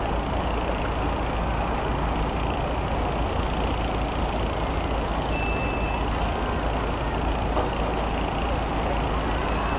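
School bus engines running together in a steady, unbroken din.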